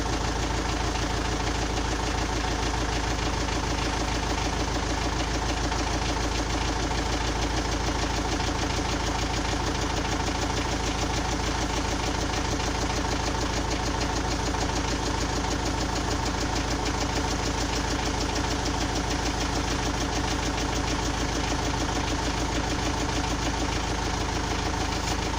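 Engine idling steadily with a repeated knock from inside the engine, a knock of unknown cause.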